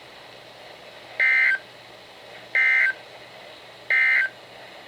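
Three short bursts of Emergency Alert System SAME data tones, a rapid buzzy warble, each about a third of a second long and about a second apart. This is the EAS end-of-message (NNNN) code that closes the alert broadcast.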